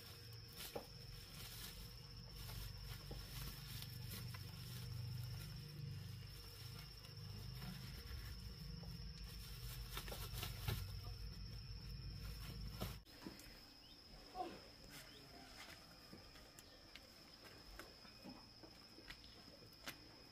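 A steady high insect drone, with rustling and knocking from green bananas being pushed into a woven plastic sack; the handling noise cuts off abruptly about two-thirds of the way through, leaving the insect drone and a few faint clicks.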